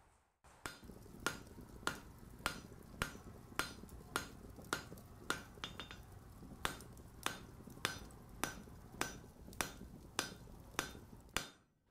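Hammer blows striking an anvil in a steady rhythm, a little under two a second, each blow ringing briefly, over a low steady background hum.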